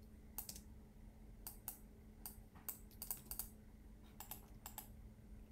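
Faint computer keyboard keystrokes and clicks, coming irregularly in small clusters, over a faint steady hum.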